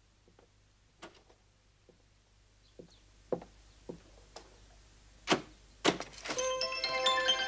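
Pounding on a door: a series of scattered knocks that grow louder, the last two the loudest. Bell-like mallet-percussion music comes in near the end.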